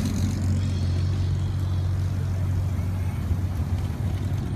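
Low, steady exhaust rumble of a classic car's engine as it drives past and away, easing off a little partway through.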